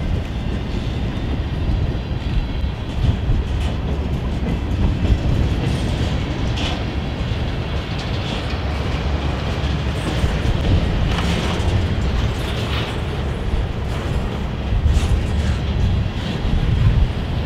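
Freight cars of a passing train rolling by close at hand, mostly empty centerbeam flatcars and boxcars, then covered hoppers: a steady low rumble of steel wheels on rail, with clickety-clack and occasional sharp metallic knocks.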